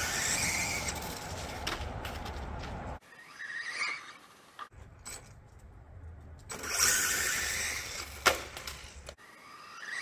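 Losi 1/16-scale no-prep RC drag car launching and running down concrete: a rising electric-motor whine over tyre noise. It comes as several short passes that cut off abruptly, the loudest near the start and about two-thirds of the way in.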